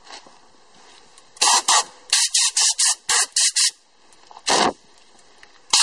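Compressed-air blow gun fired in short hissing bursts, blowing brake dust off a drum-brake backing plate and hub: one burst, then a rapid run of about eight short bursts, a single burst, and more starting near the end.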